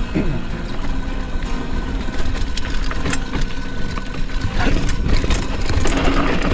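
Mountain bike ridden fast down a dirt trail: rushing wind and tyre noise with frequent sharp clicks and rattles from the bike over rough ground, busiest in the second half, over a steady low buzz.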